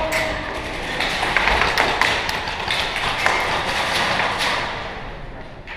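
Irregular sharp taps and clicks of airsoft shots and BB impacts, echoing in a large warehouse hall and easing off near the end.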